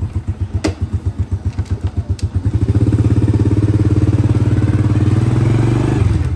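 A Honda Dream's single-cylinder four-stroke engine idles with an even, rapid pulse after a cold morning start. About two and a half seconds in it revs up and holds at a higher speed, picking up cleanly without stumbling. A short sharp click is heard early on.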